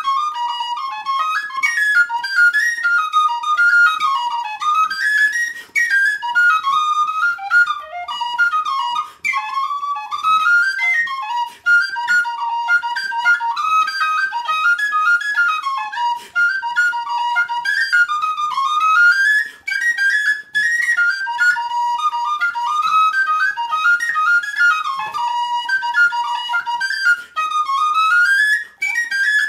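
Solo tin whistle playing an Irish traditional reel: fast runs of clear high notes that climb and fall, with brief breaks every few seconds.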